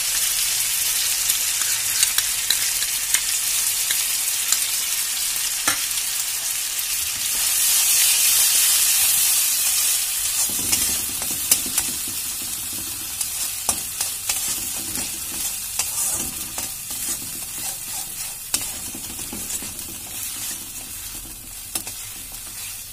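Onion and dried red chilli paste sizzling in hot ghee in a metal wok, while a spatula scrapes and taps against the pan as it is stirred. The sizzle is loudest around the middle and thins out toward the end.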